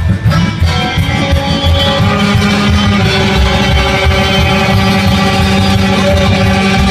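Live band playing a Vlach kolo folk dance tune, led by an electric guitar over a pulsing low beat. A long low note is held from about two seconds in.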